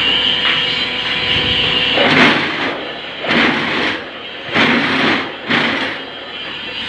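Hydraulic paving-block press machine running: a steady hum for about two seconds, then four noisy rushes roughly a second apart.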